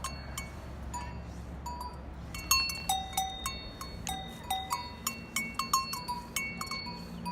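Livestock bells clanking irregularly, many separate strikes each ringing on at a few different pitches, over a steady low hum.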